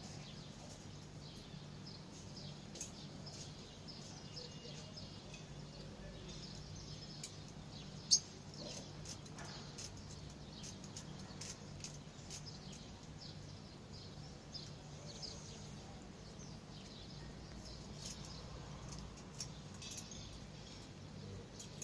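Faint, scattered bird chirps over a steady low hum, with one sharp click about eight seconds in.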